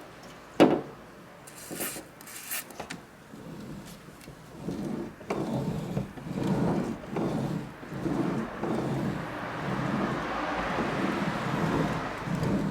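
Creaking and rubbing from the left sliding door of a Nissan Serena e-Power (C27) minivan, heard in the cabin as a run of repeated creaks. A sharp knock comes about half a second in. The noise started suddenly, and its cause is not yet known.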